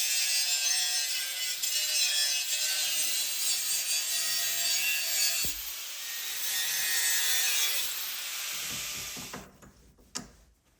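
A power tool cutting through the steel of an old gas cylinder, a loud rasping cut over a faint steady high whine. It stops about nine and a half seconds in, followed by a single small knock.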